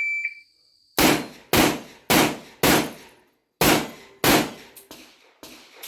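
An electronic shot-timer beeps twice, then about a second later a shotgun fires six times at roughly half-second intervals, with a slightly longer pause after the fourth shot, at bowling pins. Two fainter knocks follow near the end.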